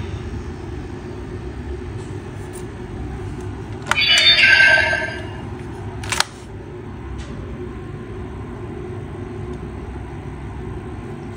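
DX Blazar Brace toy bracelet giving a short electronic sound effect from its speaker about four seconds in, followed by a sharp plastic click as the brace is worked by hand, over a steady low hum.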